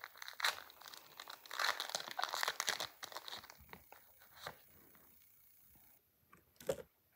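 Foil wrapper of a Pokémon TCG booster pack being torn open and crinkled, busiest in the first three seconds and dying away after. A single sharp tap near the end.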